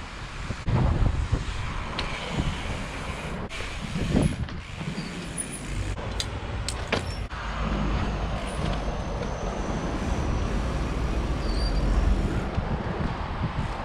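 Inspired Fourplay street trials bike ridden over pavement and ledges: a steady rush of wind on the camera's microphone and tyre noise, with a few knocks early on and sharp clicks around the middle.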